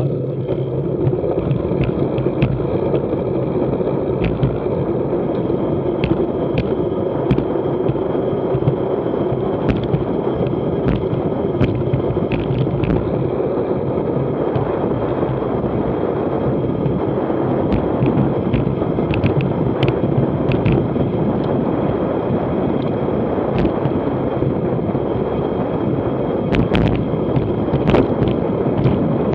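Wind rushing over the microphone and tyre roar on asphalt as a road bicycle coasts downhill at about 35 mph, with scattered sharp clicks and knocks.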